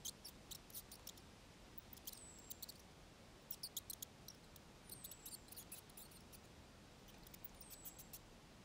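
Faint, high-pitched animal squeaks and chirps in short clusters, the loudest about halfway through, with a thin call falling in pitch that repeats three times, over an otherwise near-silent garden background.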